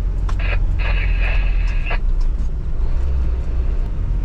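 Vehicle engine and road noise as a steady low drone while climbing an incline, with a short high-pitched squeal about half a second in and a longer one lasting about a second.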